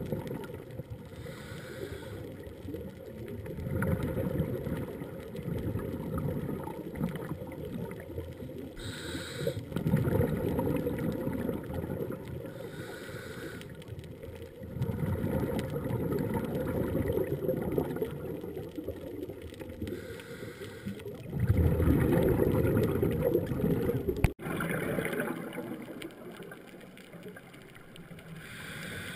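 Underwater sound heard through a camera housing: a scuba diver's exhaled bubbles rumbling in surges every five or six seconds, with fainter regulator hiss between breaths. After a sudden cut near the end it is quieter.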